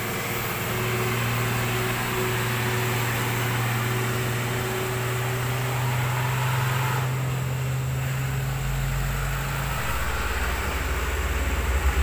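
Heavy diesel trucks passing on the road with a steady engine drone and tyre noise. Near the end a second truck's engine comes in with a low, pulsing throb.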